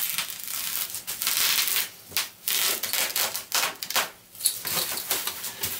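Plastic bubble wrap rustling as it is unrolled and pressed flat by hand, in irregular stretches with short pauses about two and four seconds in.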